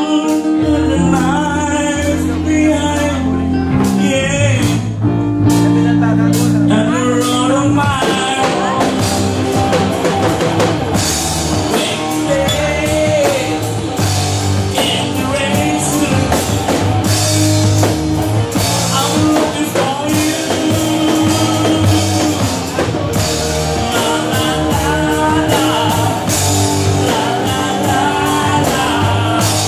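Live rock band playing: a singer over electric bass, electric guitar and a drum kit with cymbals.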